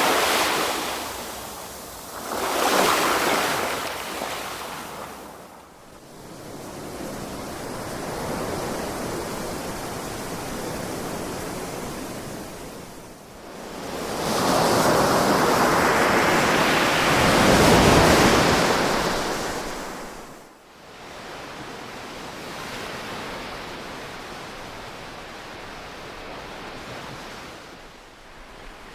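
Ocean waves breaking and washing up a shore in slow surges of hiss. Two short waves break near the start, and a longer, louder one builds and drains away between about fourteen and twenty seconds in.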